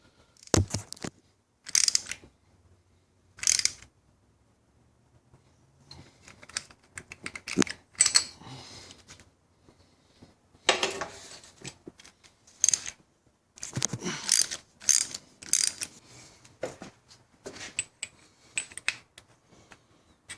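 Hand tools and metal parts being handled during motorcycle ignition work: irregular clicks, clinks and short rattling runs with pauses between them.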